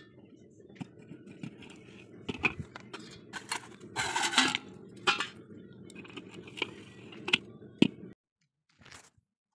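Small steel parts clinking and rattling against a metal bowl, a string of sharp clicks over a steady low rumble, with a louder rushing burst about four seconds in. The sound cuts off suddenly shortly after eight seconds.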